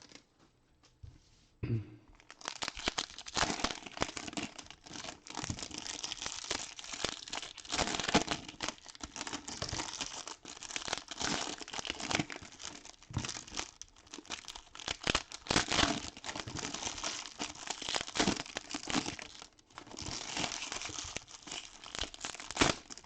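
Plastic wrappers of 2022-23 Hoops basketball card packs being torn open and crumpled, a dense, continuous crinkling and tearing that starts about two seconds in.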